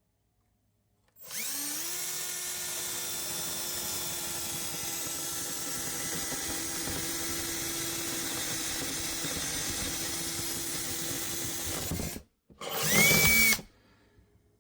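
Power drill boring a hole through a cabinet for a water line. It runs steadily for about eleven seconds, stops briefly, then gives a shorter, louder burst with a rising whine near the end.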